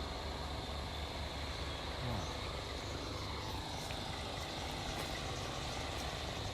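Steady outdoor background: a low rumble like distant traffic with a faint, steady high insect hum.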